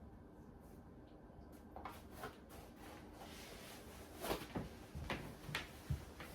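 A series of light knocks and clicks with some rustling as things are handled, the sharpest knocks coming in the second half.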